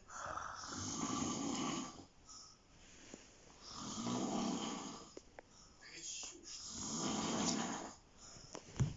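A person snoring: three long snores about three seconds apart. Near the end there is a short, sharp knock, the loudest sound in the stretch.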